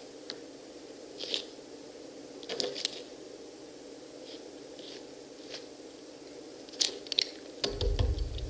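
Pomegranates being cut, pried and torn apart by hand and with knives, close-miked: scattered wet crunches, squelches and clicks of rind and seeds, over a steady hum. A low rumble comes in near the end.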